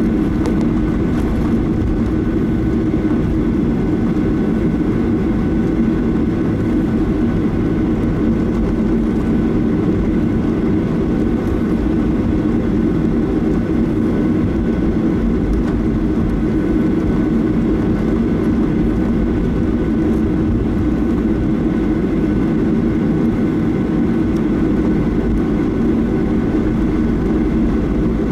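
Steady cabin noise of a Boeing 737-800 airliner in flight: a loud, even drone of its CFM56 turbofan engines and the airflow, with a few faint steady hums above it.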